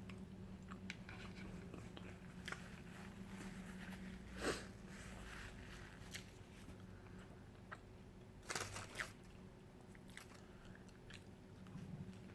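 Close-miked eating: quiet chewing with scattered bites and crunches, the two loudest about four and a half seconds in and around nine seconds in, over a faint steady hum.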